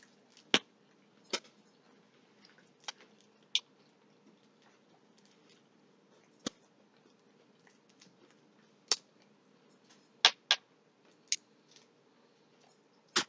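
Cooked shrimp shell being peeled by hand: about ten sharp cracks and clicks, spaced irregularly, with quiet between them.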